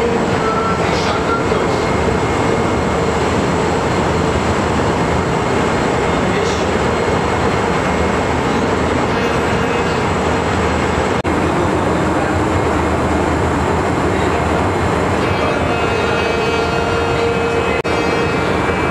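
A ship's electro-hydraulic steering gear running: its electric-motor-driven hydraulic pumps make a loud, steady mechanical noise with a constant hum.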